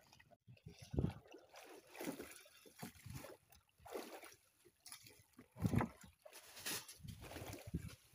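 Sea water slapping and sloshing against the hull of a small wooden boat drifting with no engine running, in irregular splashes about a second apart.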